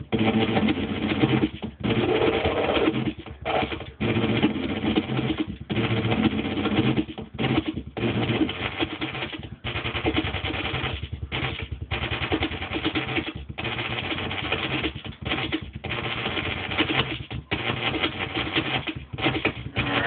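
Modular synthesizer output: a sampled drum loop on an SSL Samplecorder being retriggered and repitched while its modulation changes, giving a dense, harsh, clattering texture. It keeps cutting out abruptly for a moment and starting again.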